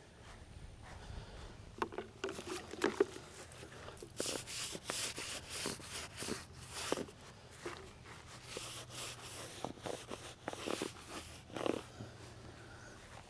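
Soft-bristle brush scrubbing a headstone coated in cleaner: a run of irregular brushing strokes starts about two seconds in and stops about a second before the end.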